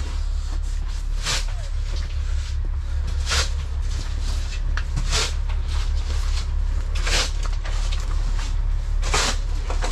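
Footsteps crunching and scuffing over debris scattered on a shop floor, about one step every two seconds, over a steady low rumble.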